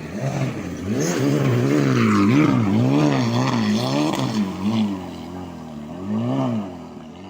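A competition car's engine revving up and down repeatedly as it is driven hard, its pitch rising and falling about twice a second, loudest in the first half and easing off near the end.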